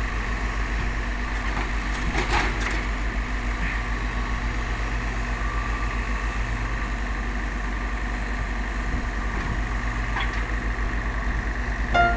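Excavator's diesel engine running steadily with an even low throb, with a couple of faint clicks.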